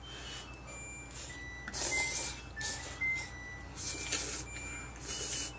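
Jjapaghetti noodles being slurped from chopsticks: several short, hissy slurps.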